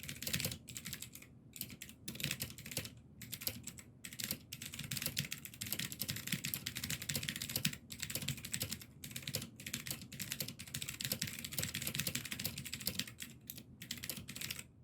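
Typing on a mechanical keyboard with clicky Gateron Blue switches in a thin glass case, a fast run of key clicks with brief pauses. The glass case damps the switches, so they sound less loud than Blues usually do.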